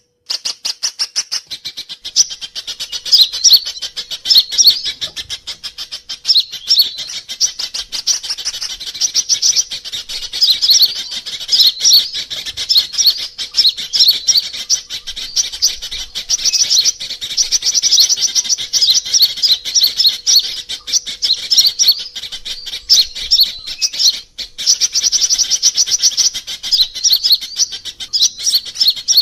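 Sunbird lure call (suara pikat): a fast, near-continuous stream of thin, high-pitched chirps and trills, with a short break about twenty-four seconds in. It is played to draw sunbirds in.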